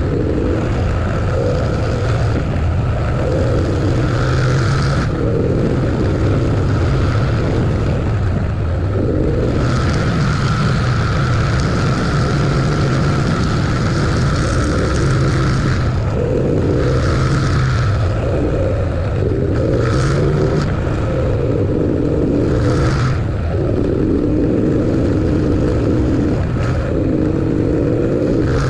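Steady engine and road noise of a vehicle being driven along a road.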